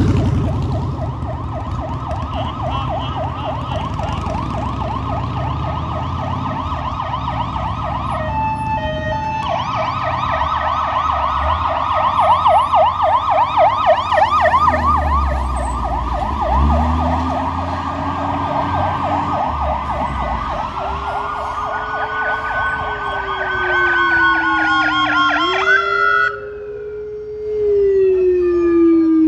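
Emergency vehicle sirens on a rapid yelp, briefly broken about eight seconds in, with the deep rumble of a fire engine's diesel loudest as it passes about halfway through. About 26 seconds in the yelp stops and a slower siren tone glides downward.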